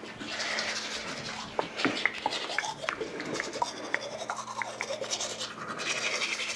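A toothbrush scrubbing teeth with toothpaste: a continuous wet scratching with many small clicks, over a faint steady hum.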